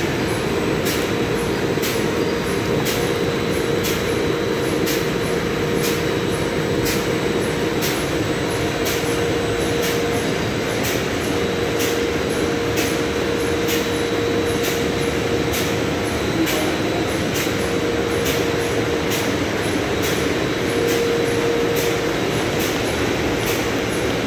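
MP-DW-301 dewatering screw press and its sludge-cake conveyor running: a steady loud machine noise with a whine that drops out a few times and a regular light ticking a little more than once a second.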